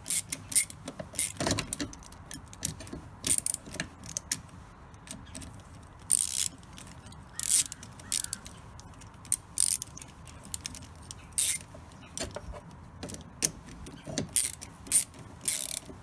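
Socket ratchet clicking in short, irregular bursts, with metal clinks, as the nuts on a 12 V winch solenoid's terminal posts are snugged up.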